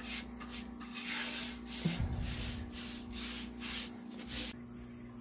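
Paint brush scrubbing chalk paint thinly into a painted nightstand top: dry, scratchy back-and-forth strokes at about three a second, cutting off suddenly near the end.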